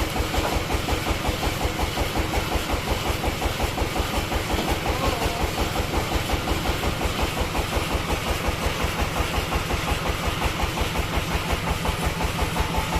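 The engine of a bandsaw sawmill running steadily, with a fast, even beat.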